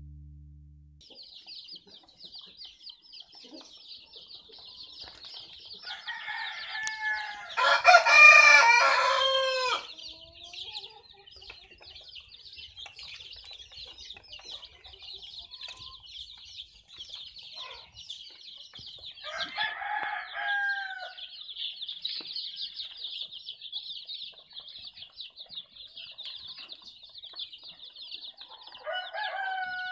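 A dense, continuous chorus of nine-day-old native chicks peeping. A rooster crows loudly about eight seconds in, and shorter crows or calls come about twenty seconds in and near the end.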